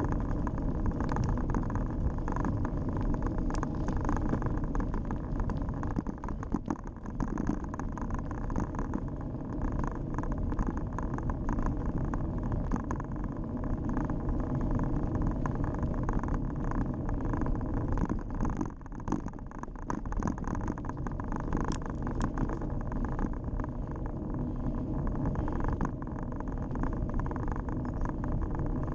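Steady ride noise from a Scott X40 cross-country mountain bike rolling along a tarmac lane: tyre rumble and wind on the camera's microphone, with frequent small rattles and knocks from the bike.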